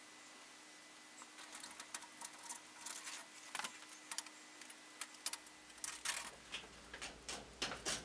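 Clear plastic transfer tape being handled and pressed onto a corrugated steel garage door: irregular crinkling rustles and light clicks, starting about a second in.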